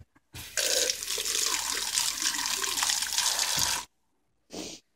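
Water running steadily for about three seconds, starting about half a second in and stopping suddenly, with a short burst of noise near the end.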